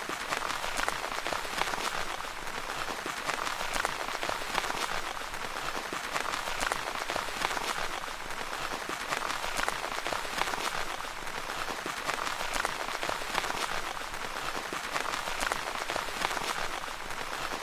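Steady rain pattering on a tent's fabric, a dense even hiss of many small drop impacts.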